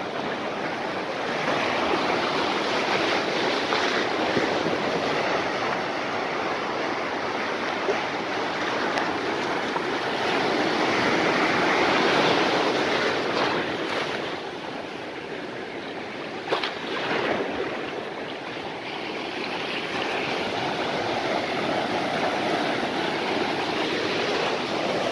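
Ocean surf breaking and washing through shallow water, a continuous rushing that swells loudest about twelve seconds in as a wave breaks close by, then eases. A brief knock about sixteen and a half seconds in.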